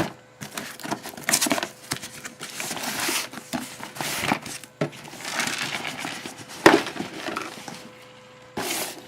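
A cardboard parcel and its packaging being handled: irregular rustling and crinkling with scattered knocks, the sharpest about two-thirds of the way through, over a faint steady hum.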